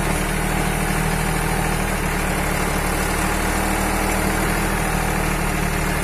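Swaraj 960FE tractor's diesel engine running steadily at an even speed while it powers the Bull backhoe attachment digging soil.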